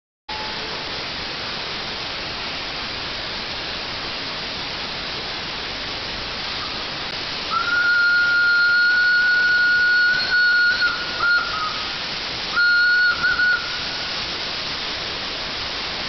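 WP class steam locomotive's steam whistle blown over a steady hiss. It starts about halfway through with one long blast of about three seconds, followed by a few short toots and then another brief, broken blast.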